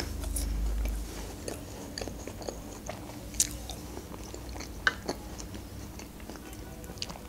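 A person chewing food with the mouth closed, close to the microphone: soft wet mouth sounds with a few small sharp clicks scattered through them.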